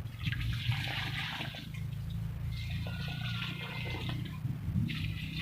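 Water poured from a container into planting holes in garden soil, splashing in stretches of a second or so with short breaks between pours, over a steady low rumble.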